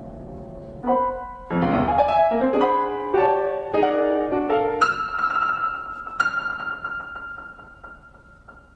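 Solo piano: a run of separate notes, then a high note struck about halfway through that rings on and slowly fades, struck again a second later.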